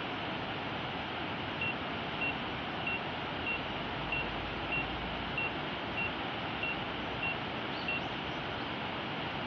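Drone controller app's obstacle-warning beep: eleven short, high, even beeps about 0.6 s apart, starting about a second and a half in and stopping near the end, signalling an obstacle close to the drone. They sound over a steady rushing hiss.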